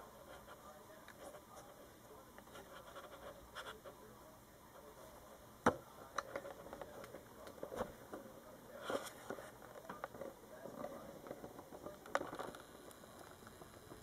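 Faint handling noise: scattered small clicks and rubbing, with one sharper click about six seconds in.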